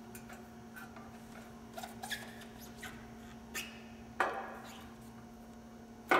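Chrome hubcap on a VW Karmann Ghia's steel wheel being pried loose by hand: small metal clicks and scrapes at its rim, then two sharper metal knocks, one about four seconds in and a louder one just before the end. A steady low hum runs underneath.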